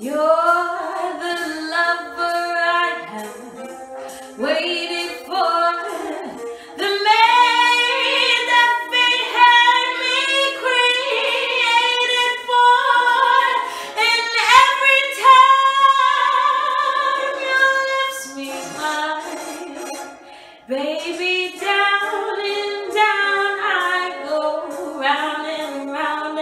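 A woman singing solo without accompaniment, with held notes that bend in pitch; she pauses briefly about twenty seconds in.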